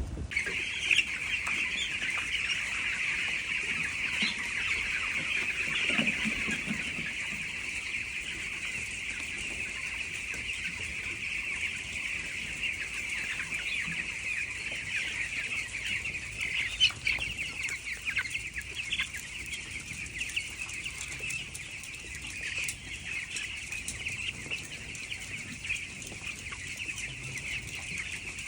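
A shed full of twelve-day-old chicks peeping all together, a dense, steady, high-pitched chorus of many overlapping calls.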